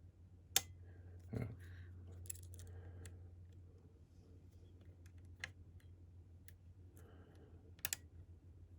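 Lock pick and tension wrench working the pins of a Medeco cam lock: scattered small, sharp metallic clicks, about half a dozen, as pins are lifted and set, with a double click near the end. A faint steady low hum sits underneath.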